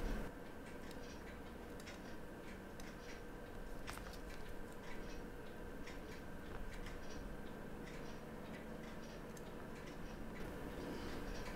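Faint, irregular small clicks of steel tweezers and fingers working a plastic movement plate back into place on a quartz watch movement.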